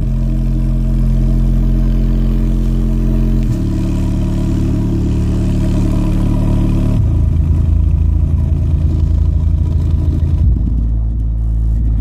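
A subwoofer in a carpeted box playing loud, deep bass notes that hold steady and step to a new pitch about every three and a half seconds.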